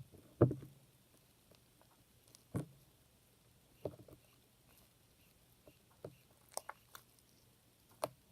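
Clear slime being stirred and worked by hand as it starts to come together: a handful of short, wet squelches and clicks a second or two apart, the loudest near the start.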